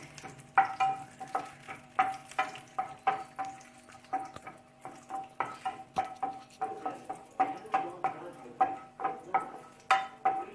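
Cashews frying in a little hot oil, stirred around a pan: a faint sizzle under repeated scraping and tapping strokes, about two to three a second, each leaving the pan ringing briefly.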